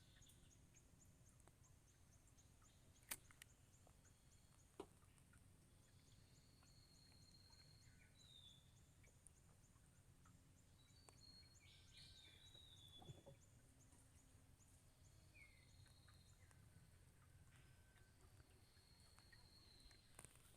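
Near silence: faint outdoor ambience with a few distant bird whistles, some falling in pitch, and two sharp clicks early on.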